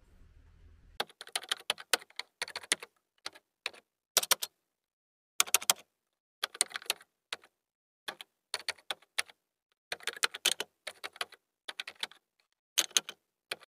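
Typing sound effect: keys clicking in quick, irregular runs with short pauses, starting about a second in after a faint low hum.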